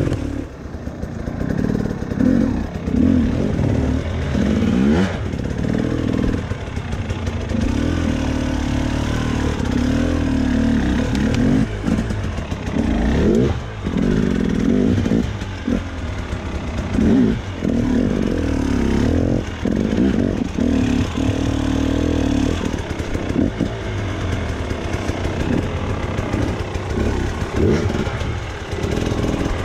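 Husqvarna enduro dirt bike engine revving up and down in short bursts as the throttle is worked at low speed over rocks, with scattered knocks and clatter from the bike hitting stones.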